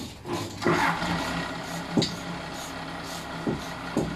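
Hand tools knocking and clicking against the metal housing of a truck gearbox during assembly: a few sharp knocks, one about two seconds in and two more near the end. Under them a steady low machine hum starts just under a second in.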